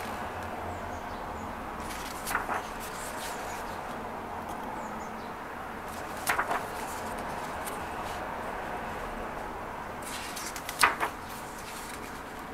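Pages of a photobook being turned by hand, three brief papery flips about four seconds apart, over a steady background hiss.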